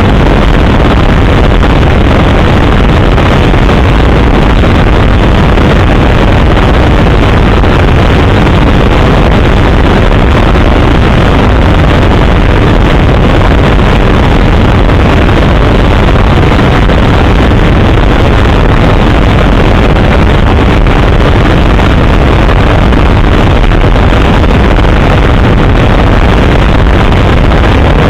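Helicopter in flight, heard from inside: a loud, steady drone of rotor and engine with rushing air, unchanging throughout.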